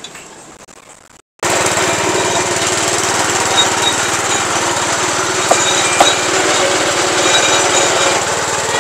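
Small engine driving a sugarcane juice roller press, running steadily with a fast, even chugging beat. It comes in abruptly about a second and a half in.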